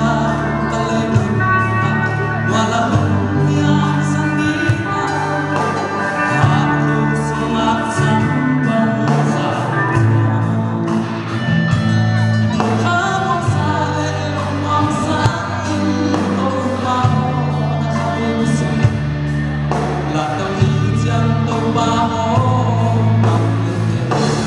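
Live band playing a song through a PA: two male singers on microphones over drums with cymbals keeping a steady beat, electric guitars, bass and keyboard.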